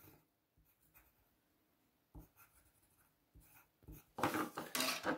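Pencil scratching on drawing paper: a few faint taps, then from about four seconds in, a run of short scratchy strokes.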